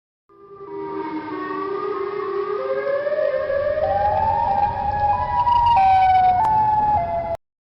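A long wordless call for an imaginary creature, one pitched voice that climbs in steps from low to high and then cuts off suddenly.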